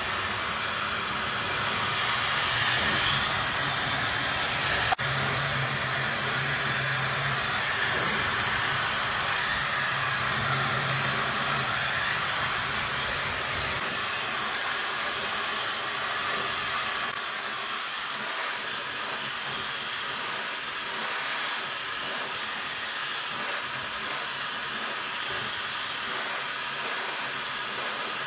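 Breezelle hair dryer blowing steadily as it dries freshly washed hair: a loud, even rush of air, with a single sharp click about five seconds in.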